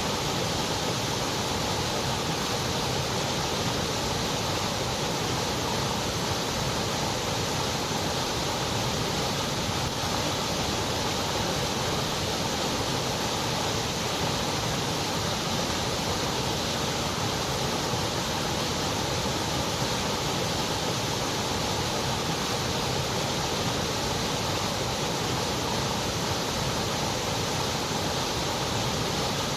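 Steady electronic white noise: an even, unbroken hiss with no change in level or pitch.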